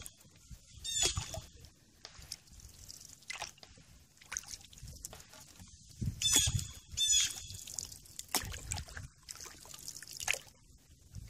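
Water dripping and trickling off a canoe paddle, with small splashes and knocks on the water. A bird gives a short call about a second in, then twice more around six to seven seconds in.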